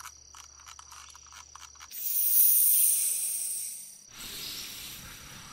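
Sound effect of a sealed protective helmet being taken off: a few faint clicks, then a loud hiss of escaping air about two seconds in that fades, followed by a softer rush of air. Crickets chirp faintly underneath.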